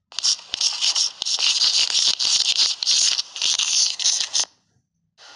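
Chalk scratching across a blackboard in quick strokes with small taps, the sound of letters being written. It stops about four and a half seconds in, and a short scratch comes near the end.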